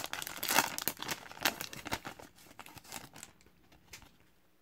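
Foil wrapper of a hockey trading-card pack crinkling and tearing as it is pulled open by hand, with sharp crackles. It dies away after about three seconds, leaving only a few faint ticks.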